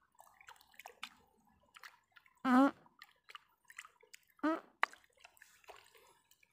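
Water dripping and small splashes as a wet bucket trap packed with grass is handled over shallow muddy water. Two short wavering pitched calls stand out, about two and a half and four and a half seconds in.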